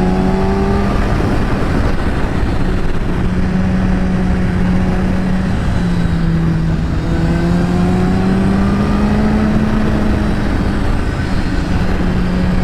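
2010 Kawasaki Ninja ZX-10R's inline-four engine running through an Akrapovič carbon exhaust while the bike is ridden at a fairly steady speed. Its note dips and rises gently, over a heavy rushing noise.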